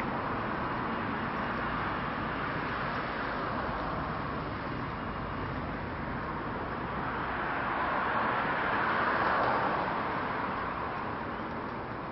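Steady city street traffic noise, with a vehicle passing more loudly about eight to ten seconds in.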